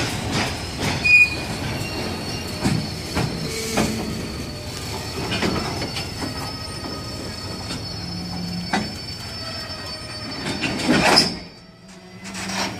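Loaded freight wagons of a heavy chrome train rolling past close by: irregular clacks and knocks of the wheels over the rail joints, with a thin, steady high squeal from the wheels running through most of it. The sound drops away abruptly about a second before the end.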